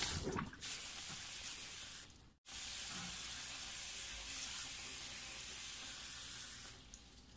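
Kitchen tap running into a glass bowl of cut potato sticks in a stainless steel sink, with water splashing as the sticks are swished and rinsed to wash out their starch. The sound cuts out briefly about two and a half seconds in, then the water runs steadily and dies down near the end.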